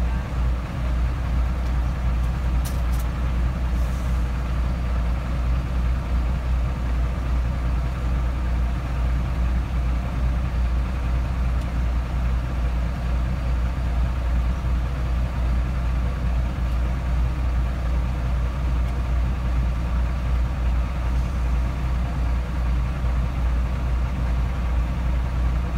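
Steady low rumble of a vehicle's running engine heard from inside the cab.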